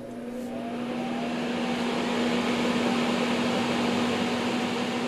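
All-metal solder fume extractor fan spinning up. A rising whine fades into a growing rush of air over a steady hum, which grows for about three seconds and then levels off.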